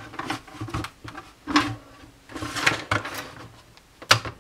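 Hard plastic parts of an Altec Lansing inMotion iPod speaker being handled and pried during disassembly: irregular clicks, knocks and scrapes, the sharpest about a second and a half in, near three seconds, and just before the end.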